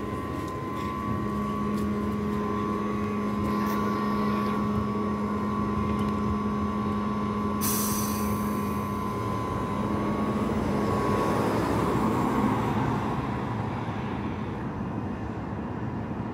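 MAZ 203T electric trolleybus standing at a stop with a steady electrical hum. About eight seconds in there is a sudden sharp hiss of compressed air from its pneumatic doors. The trolleybus then pulls away: its sound swells and then fades as it leaves.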